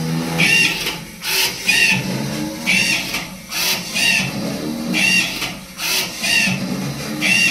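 Automatic cotton wick making machine running, its mechanism clattering in a regular repeating cycle about once a second as it forms round cotton wicks.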